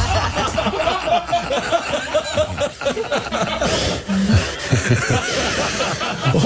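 People laughing and chuckling in short, broken bursts.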